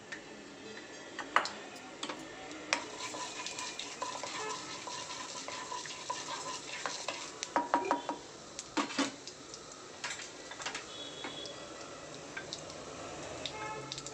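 Tempering seeds sizzling in hot oil in an aluminium kadai. A metal spoon stirs them, clinking sharply against the pan now and then, most often around the middle.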